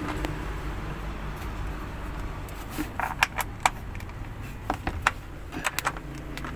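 Quick light clicks and taps of a small bracket being handled and fitted by hand, in a cluster about three seconds in and another near five seconds, over a low steady hum.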